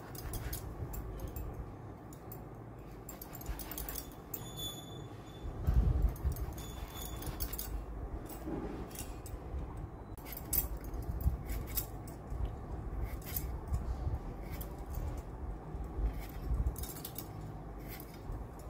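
Small kitchen knife scraping and slicing through bottle gourd peel, a run of short scrapes and clicks, with a few brief high clinks a few seconds in and a dull thump about six seconds in.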